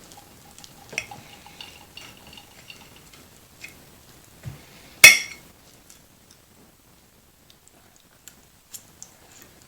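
Tableware clinking: a ringing clink about a second in and a much louder, sharp clink about five seconds in, with small taps and ticks between.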